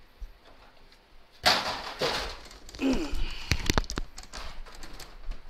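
Handling of a large HP inkjet office printer: a scraping rustle about one and a half seconds in, a short grunt, then a quick run of sharp plastic knocks and clunks as the printer is lifted.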